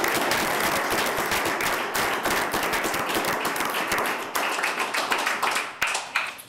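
A roomful of people applauding: many hands clapping in a dense patter that dies away near the end.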